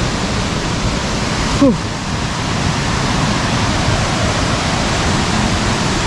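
Steady rush of water from the Palchuram waterfall close by, with a brief voice sound about a second and a half in.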